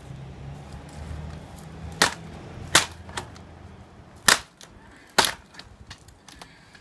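IBM ThinkPad laptop's plastic casing and screen hinge cracking as the screen is forced backward: four sharp, loud snaps over about three seconds.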